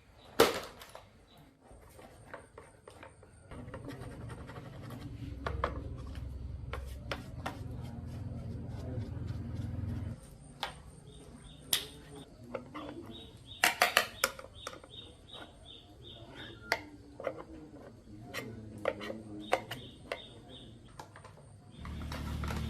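Scattered clicks, knocks and clinks of small metal parts and hand tools being handled. A low steady hum runs from about three and a half seconds in until about ten seconds in.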